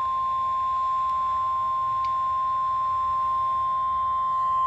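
NOAA Weather Radio warning alarm tone: a steady, single 1050 Hz tone held without a break. It is played from a weather radio receiver and signals that a warning message is about to be broadcast.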